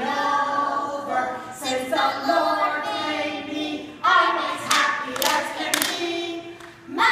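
A group of young children singing together, with a few hand claps a little past halfway through.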